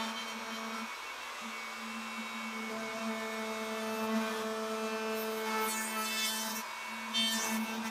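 Handheld router running with a 3/4-inch round-over bit, cutting a round-over along the underside edge of a hardwood workbench top. The motor gives a steady whine, and harsher cutting noise swells twice in the second half as the bit bites into the wood.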